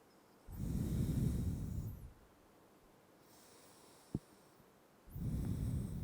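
Two slow, deep breaths close to the microphone, each lasting about a second and a half, with a single short click between them.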